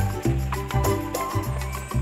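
Music with a steady beat, a strong repeating bass line and instrumental notes above it.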